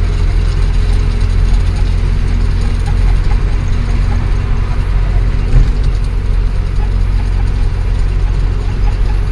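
Ashok Leyland 1214 truck's diesel engine and road noise heard from inside the cab while cruising, a steady low rumble, with a single knock a little past halfway through.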